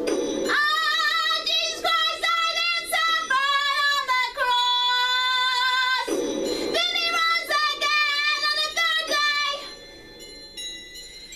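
A song with a high singing voice over music, the voice wavering in pitch and holding one long note in the middle before dropping to a quieter passage near the end.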